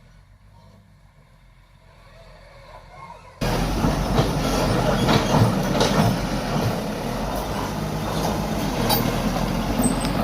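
Quiet for the first few seconds. About three and a half seconds in, a loud mechanical rumble with rattling clanks starts abruptly and runs on.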